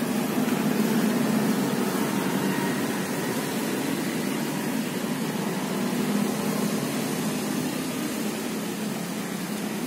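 A steady mechanical hum with a low, even drone, unchanging throughout.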